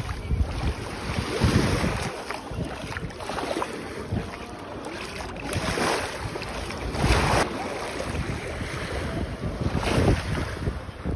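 Sea waves washing ashore in swells a few seconds apart, with wind rumbling on the microphone.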